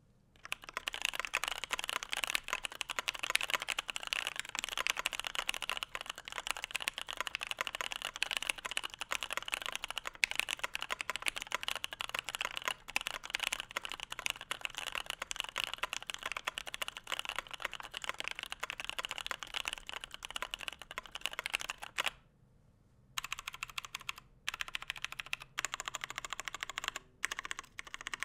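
Typing sound test on a KBD75 v3.1 aluminum 75% mechanical keyboard with Cotton Candy light tactile switches on a polycarbonate plate and PBT keycaps. Fast, continuous typing for about 22 seconds, a brief pause, then shorter, broken-up runs of keystrokes. The sound is on the higher-pitched side, with audible scratchy, plasticky noise.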